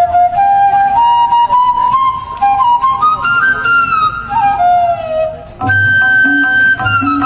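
Transverse flute playing a melody that climbs note by note, with slides between some notes. About two thirds of the way in, a rhythmic accompaniment with a low, even beat joins under the flute.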